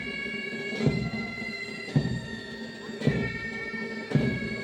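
Pipe band playing: bagpipes sounding a steady chanter melody over held drones, with a drum beat about once a second.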